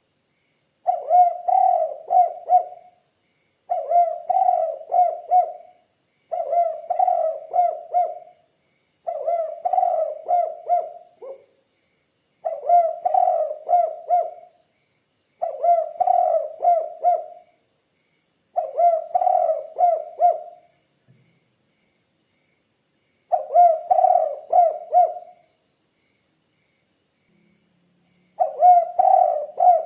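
Spotted dove (tekukur) cooing: phrases of four or five low coos, repeated about every three seconds, with two longer pauses in the second half.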